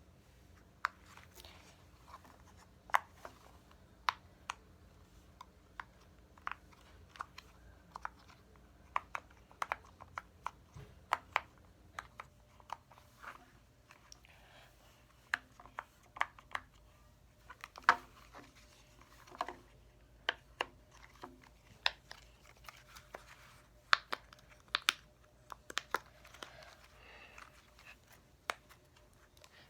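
Irregular sharp clicks and taps, about one or two a second, some louder than others, with a little crinkling: small plastic fidget toys being handled and fiddled with.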